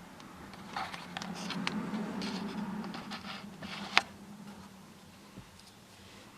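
Handling noise: light taps, clicks and rustling as a phone is worked by hand, with one sharper click about four seconds in and a faint low hum in the middle.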